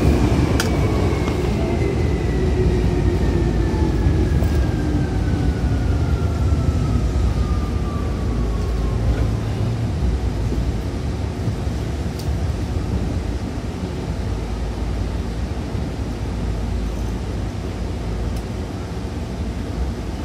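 Tokyu 8500 series train with Hitachi traction motors, heard from inside the car. A motor whine falls steadily in pitch over the first nine seconds or so as the train slows, then fades under the continuous rumble of the running gear.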